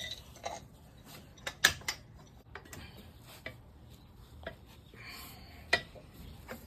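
Irregular metallic clicks and clinks of a wrench working on a truck wheel's lug nuts as they are tightened in a star pattern, with a louder click near the end.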